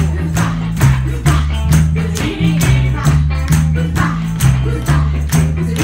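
Live band playing an upbeat Hawaiian-style dance tune: a strong bass line moving between notes under a quick, steady beat of percussion and strumming.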